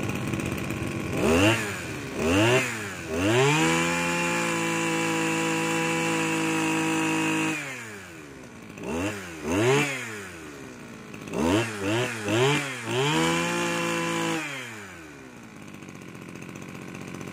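Yanmar backpack brush cutter's small petrol engine revved by hand. It takes two quick throttle blips, holds at high revs for about four seconds and falls back to idle. Then come several more quick blips and a second, shorter high-rev hold before it settles to a steady idle.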